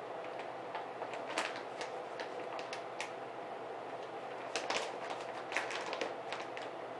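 Stiff lynx hide crackling and rustling in irregular clicks as it is worked inside out over the head by hand, over a steady hum.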